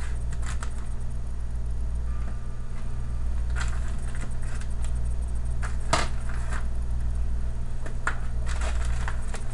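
Frozen zucchini slices clicking against each other and the plastic as they are laid into a zip-top freezer bag, with the bag crinkling: a handful of scattered light clicks, the sharpest about six seconds in. A steady low hum sits underneath.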